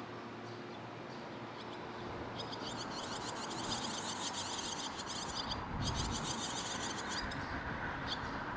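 Fledgling barn swallows begging for food: rapid, high twittering chatter starts about two seconds in and runs until near the end, with a short break in the middle.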